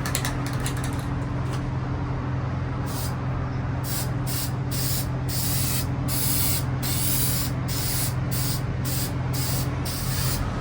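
Spray can of hammered black paint hissing in a run of short bursts, a dozen or so from about three seconds in, laying on a light texture coat. A steady low hum sits underneath.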